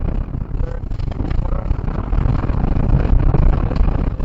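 Rally car driven hard on a gravel and dirt track, heard from inside the cabin: a loud, dense engine and tyre rumble with many small knocks and clatters from the bumpy surface, the recording distorted by the loudness.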